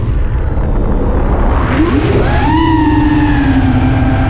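FPV quadcopter's motors whining, heard from its onboard camera, with wind rumbling on the microphone. The whine is faint at first, then climbs sharply in pitch about two seconds in and holds steady as the throttle comes up.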